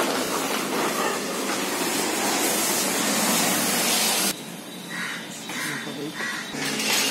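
Blue plastic tarpaulin cover rustling and crinkling as it is pulled off a motorcycle. The noise stops abruptly about four seconds in, leaving a few fainter rustles.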